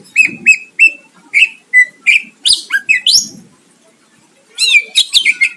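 Cucak ijo (greater green leafbird) singing loudly: a rapid string of short, sweeping whistled notes, a pause of about a second, then another quick run of notes near the end.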